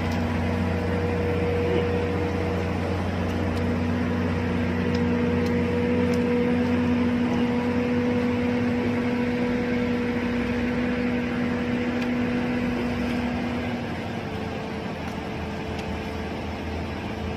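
A steady machine drone: a low hum with a held tone over it. About fourteen seconds in, part of the tone drops out and the pitch shifts slightly lower.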